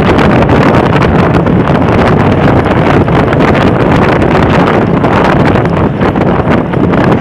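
Wind buffeting the microphone, mixed with the running engine of a Philippine motorcycle-and-sidecar tricycle riding along at speed: a loud, steady rush.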